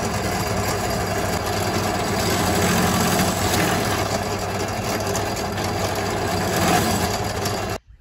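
Benchtop drill press running, its bit boring into a wooden former, a steady motor hum with drilling noise. It stops abruptly near the end.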